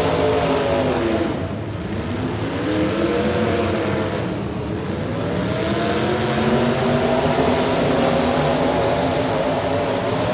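Demolition derby car engines revving hard, their pitch dipping twice in the first half and climbing again, over a steady mechanical din.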